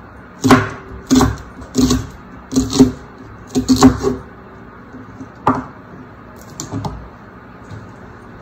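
Kitchen knife slicing green onions on a wooden cutting board: irregular knocks of the blade hitting the board, roughly one or two a second, several in quick succession in the first four seconds, then a few sparser ones.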